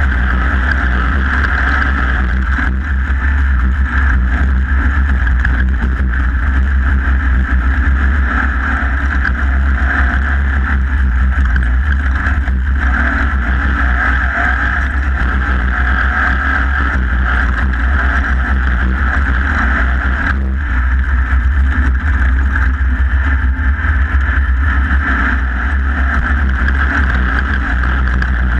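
Off-road race vehicle's engine running hard and steadily at speed, recorded on board, with a heavy low rumble under it.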